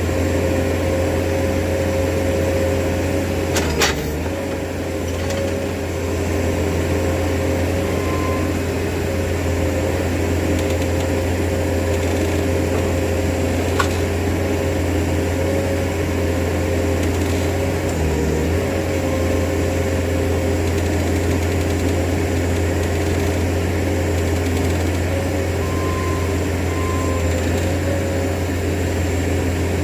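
Portable sawmill's engine running steadily while milling a log, with a sharp knock about four seconds in and a click near the middle.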